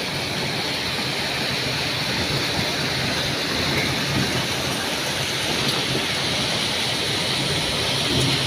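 Heavy rain pouring down in a thunderstorm, a steady dense hiss of water falling on grass and leaves.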